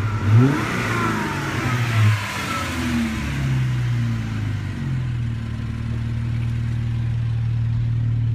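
2013 Jeep Wrangler JK's 3.6-litre Pentastar V6 breathing through a 19-inch Borla universal muffler with the resonator removed, fairly quiet. It is revved in a few quick blips during the first three seconds, then settles back to a steady idle.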